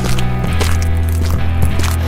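Background music: a sustained low bass note under several held tones, with regular percussive strokes.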